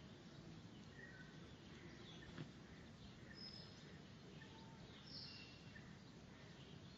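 Near silence: faint outdoor background with a few short, faint bird chirps scattered through it.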